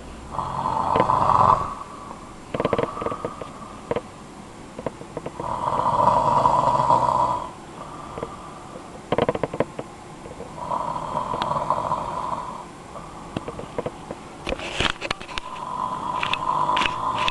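A man snoring loudly in his sleep: four long snores, roughly five seconds apart, with short crackling sounds in between.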